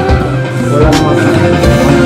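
Background music: held pitched notes with a sharp drum hit a little under a second in.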